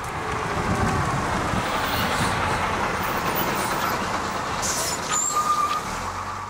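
A bus running past on the road with engine and tyre noise. Near the end come a brief hiss and a short high squeal.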